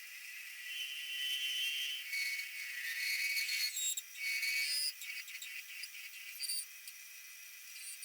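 Metal lathe turning a brass workpiece with a radius-turning tool: high-pitched cutting noise with shifting tones, loudest from about one second in to about five seconds, after which it drops to a lower running noise.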